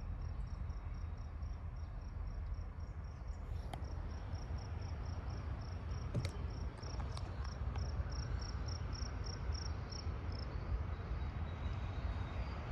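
Insect chirping in a steady rhythm, a high-pitched pulse about four times a second, which pauses near the end. Underneath is a low background rumble.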